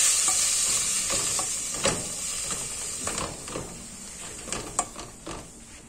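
Chopped tomato, red onion and bell pepper sizzling in a metal pot, the hiss fading over the first couple of seconds. A plastic spatula stirring them gives scattered scrapes and clicks against the pot.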